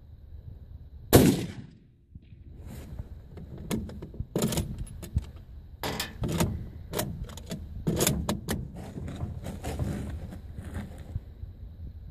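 A single loud rifle shot from a Mosin-Nagant (7.62×54mmR) about a second in, with a short echoing tail. It is followed by a long run of irregular clicks and knocks.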